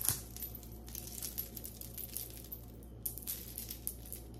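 Small metal jewelry pieces clinking and rattling together as a necklace is handled, in a run of irregular light clicks, louder at the start and about three seconds in.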